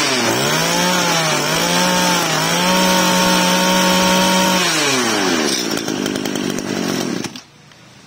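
Kawasaki TJ27 two-stroke brush-cutter engine being revved by hand. It goes up and down in a few quick throttle blips, holds at a higher speed for about two seconds, then falls back to idle, and goes quiet suddenly near the end.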